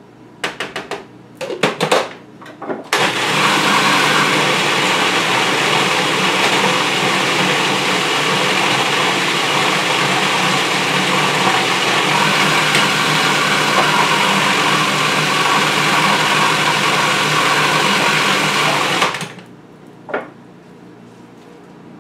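Food processor motor running steadily for about sixteen seconds as it purees pesto, then stopping abruptly. A few sharp knocks come in the first seconds before it starts, and a single knock follows about a second after it stops.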